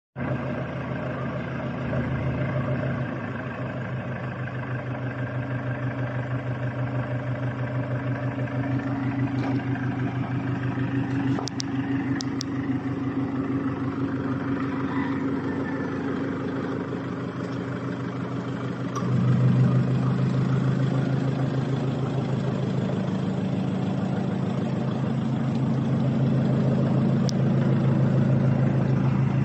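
Toyota Hiace's 2KD four-cylinder turbodiesel idling through a newly fitted exhaust resonator and tips, a steady pulsing exhaust note. It grows louder about two-thirds of the way through.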